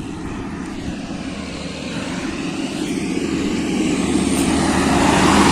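Engine of a large road vehicle, likely a truck, running steadily and growing louder as it approaches.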